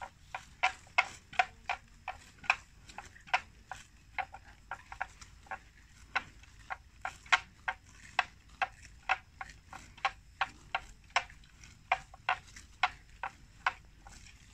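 Water buffalo tearing and cropping grass as they graze: a run of sharp, irregular snaps, about two or three a second.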